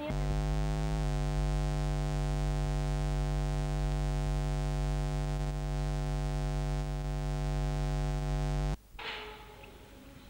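Loud, steady electrical hum with many overtones on the soundtrack, starting abruptly, shifting slightly in pitch about a second in, and cutting off suddenly near the end, after which only faint background noise remains.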